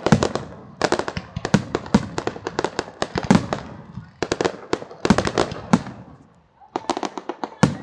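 Fireworks going off in rapid volleys of sharp bangs and crackles, with brief lulls about four seconds in and again just past six seconds.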